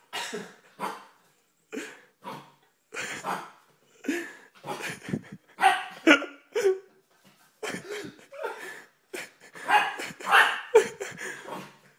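A puppy barking at its own reflection in a mirror: a long string of short, sharp barks and yips, about twenty of them, coming in uneven bursts.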